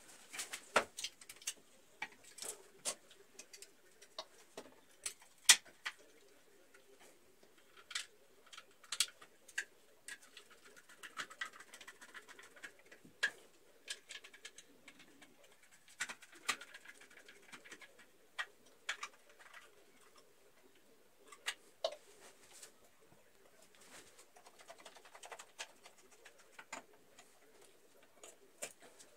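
Scattered sharp clicks and taps of a plastic surface-mounted electrical socket and its cable being handled and fitted by hand, at irregular intervals.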